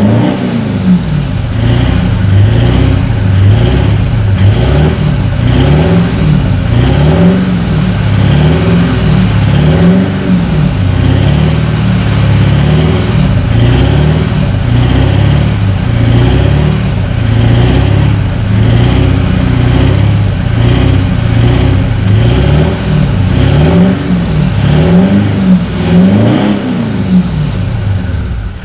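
Toyota Land Cruiser VDJ200's twin-turbo V8 diesel running through a Manta twin 3-inch into single 4-inch exhaust, revved again and again in short blips. The pitch rises and falls about once a second, with a steadier stretch in the middle.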